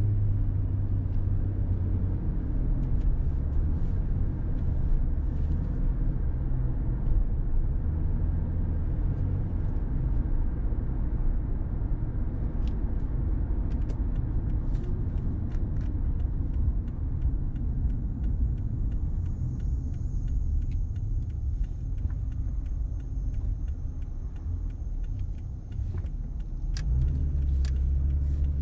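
Car driving along a city street: a steady low rumble of engine and tyre noise with a few faint ticks. It eases briefly and picks up again near the end.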